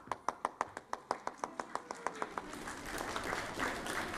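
Fast, even hand clapping, about six claps a second, which melts into looser applause with crowd noise about two and a half seconds in.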